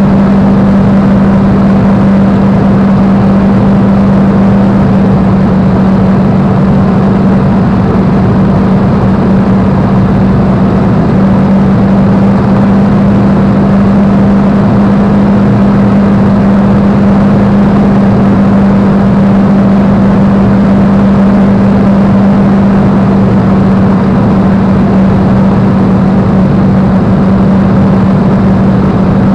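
Supermarine Spitfire's V12 piston engine running steadily in cruise, heard loud from inside the cockpit: a constant low drone with a strong steady hum and a dense rush of noise that never changes.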